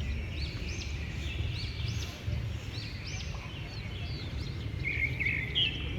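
Several birds calling and chirping at once, with short, quick, arching notes overlapping throughout. A steady low rumble sits underneath.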